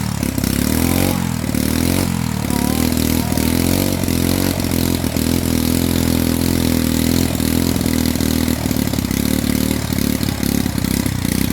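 Two-stroke chainsaw engine running continuously, its speed wavering up and down.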